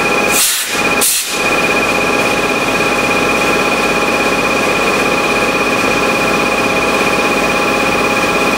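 CNC lathe running, its spindle turning a plastic workpiece during a finish cut on the outside diameter: a steady machine hum with a constant high whine over it. Twice in the first second and a half the low hum briefly drops away and a short hiss takes its place.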